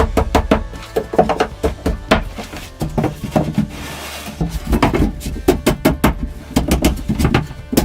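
A rapid, irregular run of sharp knocks and clicks, several a second, some with a short hollow ring.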